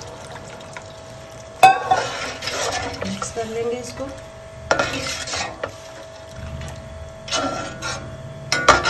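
Steel slotted ladle stirring beef and stock in a stainless steel pot, clanking and scraping against the pot's sides and bottom, with a sharp ringing clank about a second and a half in and several more scrapes and clinks after it. It starts softly as the last of the stock goes into the pot.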